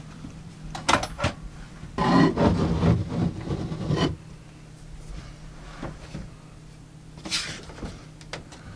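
A plywood shelf top set down onto a steel floating-shelf bracket and pressed into place by hand: a few sharp knocks about a second in, then about two seconds of scraping and rubbing as it slides on, with a lighter rub near the end. A steady low hum runs underneath.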